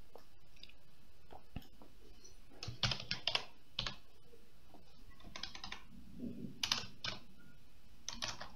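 Typing on a computer keyboard: several short runs of keystroke clicks with pauses between them.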